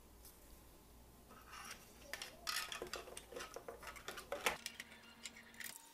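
Hard 3D-printed plastic parts clicking and knocking together as they are fitted by hand: an irregular run of light clicks starting about a second in.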